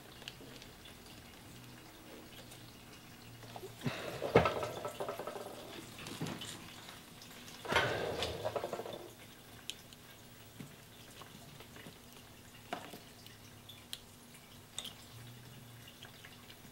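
Hands working the wiring connectors and hoses on a motorcycle fuel tank: rustling and plastic clicking about four and eight seconds in, with a few scattered single ticks.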